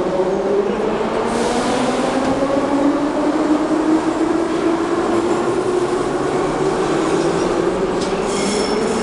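Moscow Metro train pulling out along the platform and gathering speed: the steady noise of wheels on rail and running gear, with a whining motor tone that drifts in pitch and climbs again near the end.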